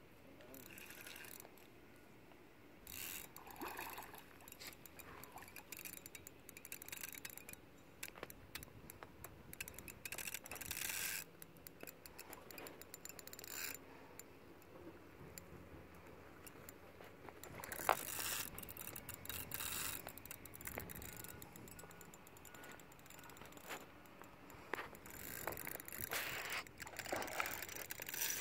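Fishing rod and reel handled while a big fish is played: bursts of scraping and rapid clicking, with quieter stretches between them.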